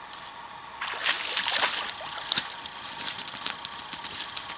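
A hooked grayling splashing and thrashing at the water's surface at the bank as it is brought in. A loud burst of splashing starts about a second in, followed by scattered smaller splashes.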